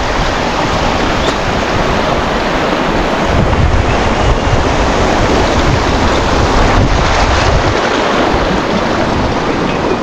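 Steady loud rushing noise, with wind buffeting the microphone in low, uneven gusts.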